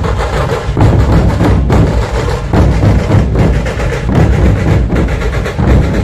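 Loud dhol-tasha ensemble drumming: massed dhol barrel drums beat a dense, driving rhythm with heavy bass, and tasha drums play over it.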